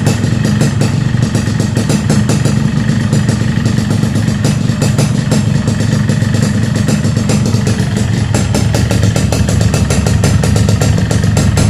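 Yamaha RX-King's two-stroke single-cylinder engine idling steadily. The piston has been heat-expanded and pressed to take up a worn, loose cylinder bore, so the harsh rattle is reduced, though a slight one normally still remains.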